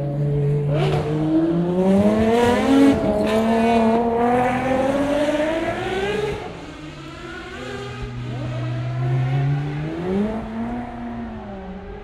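Ferrari race car engine accelerating hard. Its pitch climbs, drops once about three seconds in as it changes up a gear, and climbs again until about six seconds in. It then falls back to a lower, steady note, with a short rise and fall near the end.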